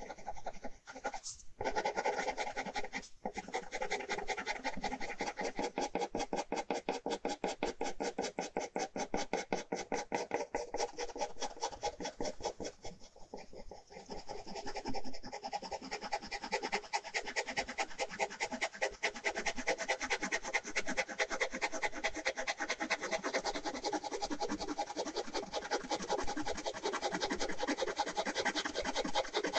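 Ballpoint pen scratching across paper in rapid back-and-forth hatching strokes, with a few brief pauses.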